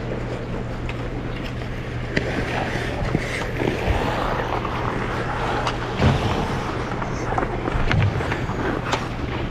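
Ice skate blades gliding and scraping across the rink, with scattered clicks and knocks, over a steady low hum.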